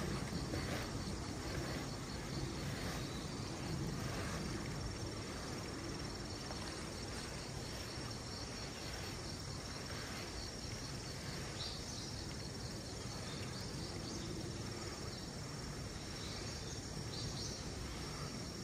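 Insects shrilling steadily: a continuous high-pitched note with a faint pulsing trill beneath it, and a few short high chirps in the second half.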